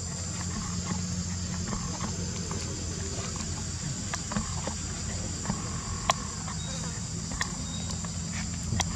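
Steady high-pitched drone of insects in the trees, with a low steady hum underneath and scattered small clicks and taps.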